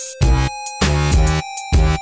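Electronic dance music with heavy bass hits on a driving beat and held synthesizer tones.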